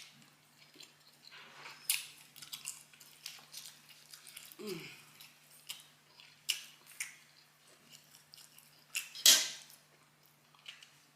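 Close-up eating of barbecue ribs: chewing with scattered wet mouth clicks and smacks, the loudest about nine seconds in, and a short falling hum near five seconds.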